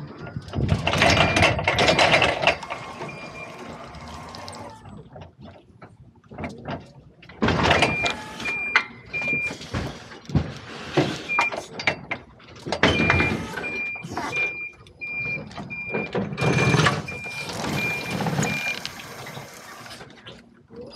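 Forklift working while unloading pallets: its reversing alarm beeps about twice a second in several runs, over engine noise and loud, rough bursts of machine handling noise.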